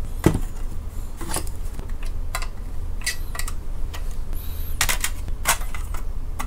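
Screwdriver tip clicking and scraping against the sheet-metal case and plastic tabs of a slim Toyota Crown Comfort car radio as part of the case is pried loose. The sound is a scatter of sharp, irregular metallic clicks with a faint low hum underneath.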